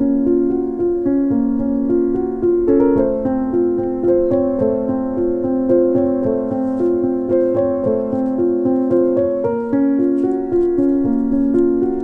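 Background piano music: a calm keyboard melody with notes changing every half-second or so at a steady pace.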